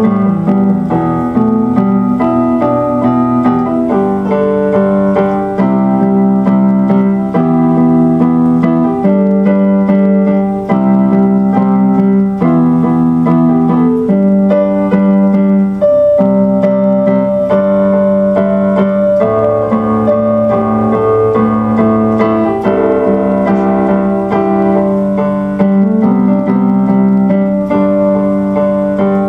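Instrumental piano or electric keyboard music, with chords changing every second or two at a steady level.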